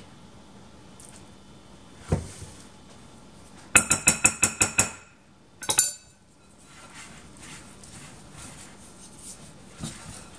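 A soft thump, then a spoon rapped about eight times fast against a mixing bowl, ringing, followed by two more clinks. After that, faint scraping as a wooden spoon stirs mayonnaise into flour in the bowl.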